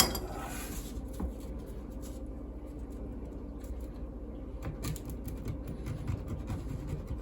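Light, irregular scraping and scratching as a switch plate is trimmed by hand to fit around a curve, with a sharp click at the start and scattered small clicks.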